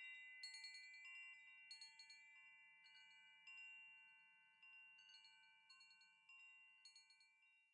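Faint chime tones, several bright pitches struck again and again at irregular moments, one or two strikes a second, each ringing on and slowly dying away.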